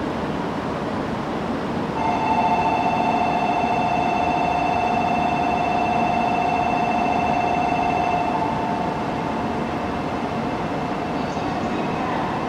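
Platform departure bell ringing as a steady warbling two-note electronic tone, starting about two seconds in and stopping about six seconds later, a departure signal for the waiting train. Under it, the steady hum of an E2 series Shinkansen standing at the platform.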